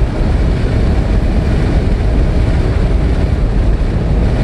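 A car cruising at highway speed, heard from inside the cabin: a steady rush of wind and road noise, heaviest in the low end.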